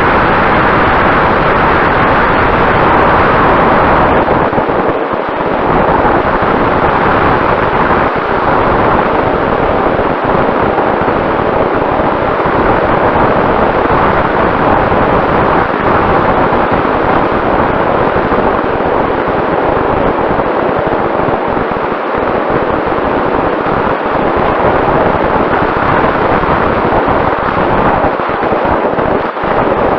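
Heavy wind rush buffeting the microphone at speed, with a faint steady hum from the vehicle underneath.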